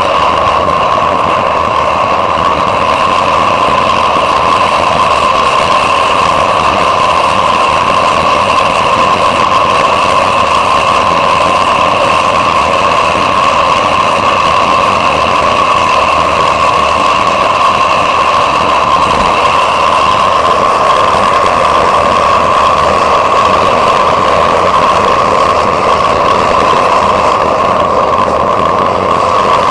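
Metal-melting furnace burner running steadily at full fire, a loud even noise with a constant pitch, while copper melts in the crucible.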